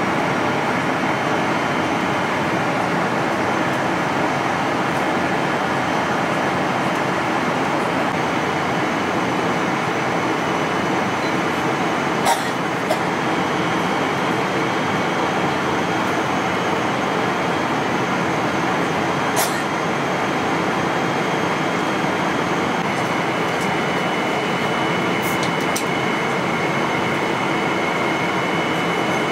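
Steady roar of airliner cabin noise inside a Boeing 777-300ER in flight, the even rush of airflow and engines, with a few short clicks from handling things at the seat about twelve and nineteen seconds in.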